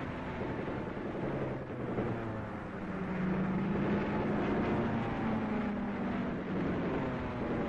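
Aircraft engines droning steadily as a group of planes flies a display, the pitch shifting slowly, a little louder from about three seconds in.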